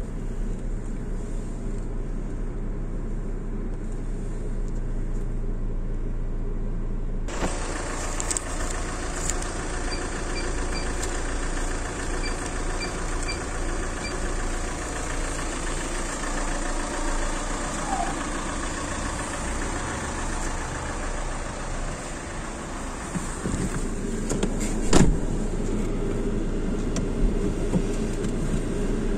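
A car engine idles, heard from inside the cabin; about seven seconds in, outside noise swells suddenly. Short electronic beeps come from a car-wash payment terminal's keypad as its buttons are pressed, and a single thump sounds near the end.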